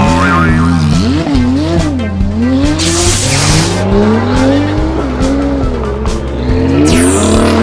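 Race car sound effects: an engine revving up and down in pitch, with two short tire screeches, one about three seconds in and one near the end, over background music with a steady low bass.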